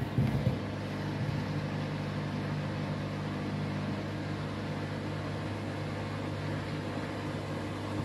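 Front-loading washing machine running with its drum turning through foamy water from washing-up liquid: a steady motor hum, with a few light knocks in the first half-second.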